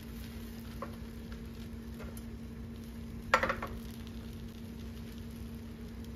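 A slotted spatula knocks and scrapes once against a nonstick frying pan with a chapati in it, about three seconds in, with a couple of fainter ticks before it. A steady low hum runs underneath.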